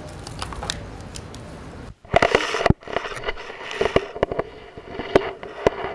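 Camera handling rustle, then, after a brief cut about two seconds in, a run of loud knocks and scraping clatter as a small action camera bumps against the concrete sewer pipe. It is heard through the camera's own microphone over a steady low tone.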